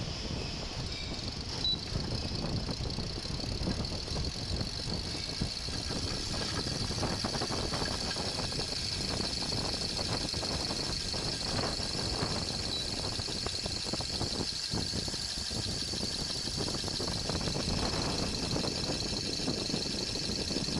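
A 12 V AC/DC five-blade fan running noisily: a steady high-pitched whine over a rough, uneven rumble with irregular rattles, the noise fault the fan has.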